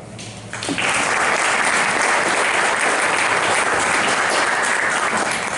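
Audience applauding, starting about a second in and fading near the end.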